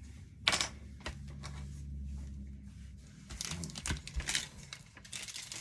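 Hockey trading cards and a torn foil pack wrapper being handled on a tabletop: a sharp crinkle about half a second in, then short bursts of rustling and light taps from about three and a half seconds in.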